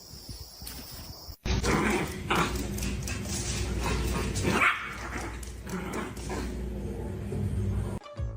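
A dog barking and vocalizing, starting abruptly about a second and a half in.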